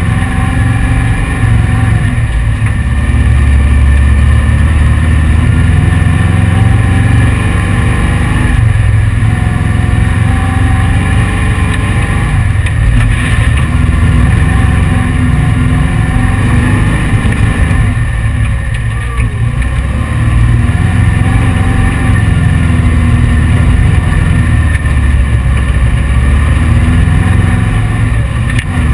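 The 1835 cc air-cooled VW flat-four of a dune buggy running steadily under load as the car cruises over sand, easing off a few times and most clearly about two-thirds of the way through. The owner says the engine is underpowered for the car's weight.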